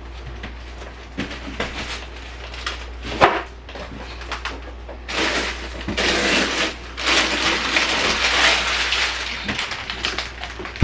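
Kitchen handling sounds: light clicks and a sharp knock about three seconds in, then about five seconds of loud rustling.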